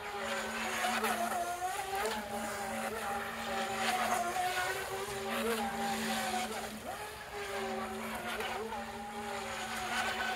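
Feilun FT012 RC speedboat's brushless motor whining at speed, its pitch wavering up and down with the throttle, dipping sharply and coming back about seven seconds in, over the hiss of spray from the hull.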